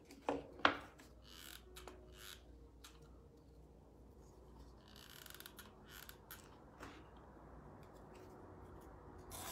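Quiet crafting sounds: a few sharp clicks in the first second, then faint taps and a brief rustle as a hot glue gun is handled and used to glue a cardboard strip.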